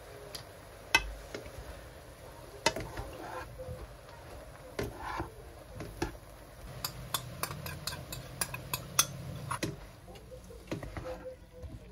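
Irregular light clicks and knocks of hard objects being handled: one sharp knock about a second in, then a quicker run of clicks in the second half.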